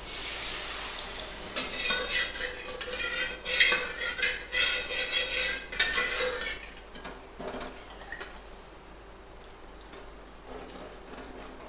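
Cooked dal poured into a pan of hot spice tempering, hissing loudly as it lands, followed by a metal spoon repeatedly clinking and scraping inside an aluminium pressure cooker and a steel ladle knocking against the pan. The clatter dies down about halfway through, leaving a few soft knocks.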